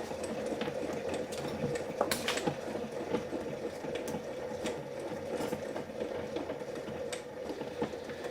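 1971 Hunter ceiling fan's oil-bath motor running steadily with a hum, self-started, with scattered light clicks.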